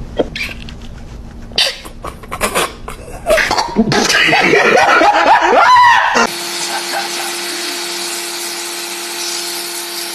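A few knocks and clicks, then loud laughter for about two seconds. About six seconds in, an electric pressure washer's motor switches on suddenly and runs with a steady hum.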